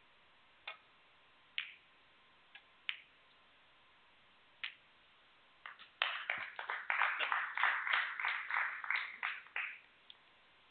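Sharp clicks of snooker balls as the cue strikes the white and a red is potted, then scattered applause from the crowd for nearly four seconds.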